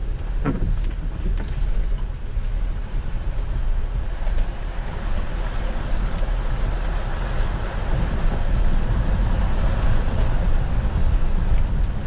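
A 4x4's engine running at low revs under the rush of fast river water. The water noise grows louder in the second half as the vehicle wades into the deep crossing and water surges against the front.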